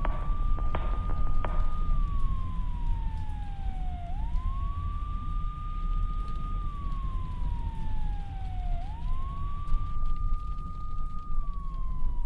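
Police siren wailing in slow cycles: a quick rise, a held high note for about two seconds, then a long slow fall, repeating about every four and a half seconds. It sounds over a steady low rumble.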